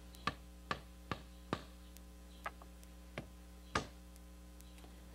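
Claw hammer striking a wooden block to drive a glued rocker onto a wicker rocking chair's leg, seating the joint. There are four quick blows in the first second and a half, then three slower ones, the last of these the loudest, over a steady low electrical hum.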